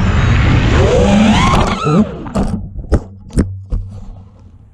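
FPV quadcopter's brushless motors whining, their pitch sweeping up and down with the throttle, then the quad crashes: a handful of sharp knocks as it hits and tumbles, and the motor whine stops, leaving only a faint hiss.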